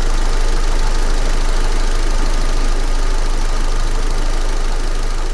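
Opel 1.6 four-cylinder petrol engine (Z16XER/F16D4) running steadily at idle.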